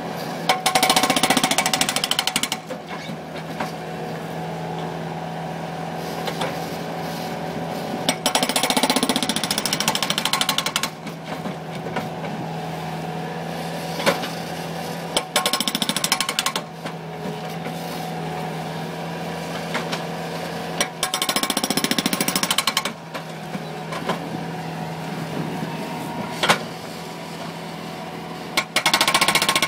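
Bobcat skid-steer's hydraulic breaker hammering pavement in bursts of one to three seconds, about five times, with the loader's engine running steadily between bursts and a few single sharp knocks.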